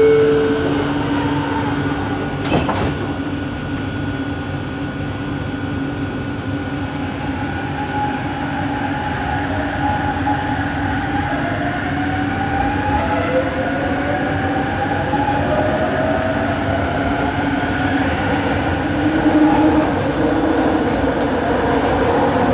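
Interior running noise of a Bombardier Innovia ART 200 metro car: a steady rumble with high motor whine tones from its linear induction motors. From about eight seconds in, several whining tones glide up and down in pitch as the train's drive changes speed. There is a single sharp click a few seconds in.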